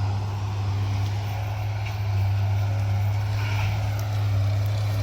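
Diesel engine of a John Deere 328D skid steer running steadily at constant speed, a deep even hum under a noisy mechanical rush.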